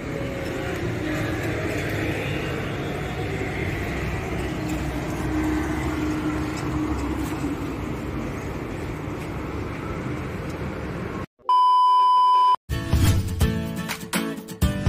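Street traffic ambience, a steady rumble and hiss of passing cars. About eleven seconds in it cuts to a loud steady electronic beep about a second long, then music starts.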